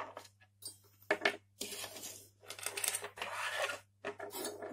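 Parts of a dismantled CPU cooler (plastic fan impeller, plastic frame and clips, finned metal heatsink) knocking and scraping as they are picked up and set down again on a wooden tabletop: a run of sharp knocks and short clattering slides.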